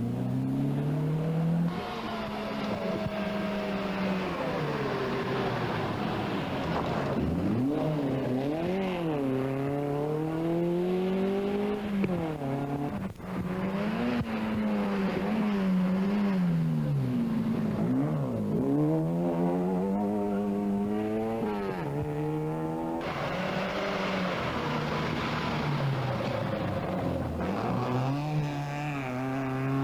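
Rally car engine driven hard on a stage, its note repeatedly climbing through the revs and dropping back with gear changes and braking. The sound dips out briefly about thirteen seconds in.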